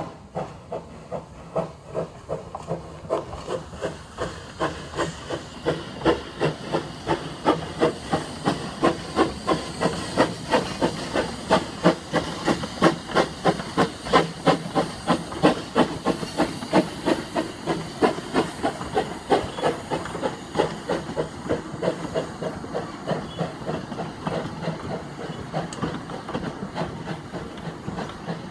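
Baldwin steam locomotive pulling away with a passenger train: a regular beat of exhaust chuffs over a hiss of steam. The chuffs quicken as it gets under way, are loudest as it passes close by, then ease a little as it draws away.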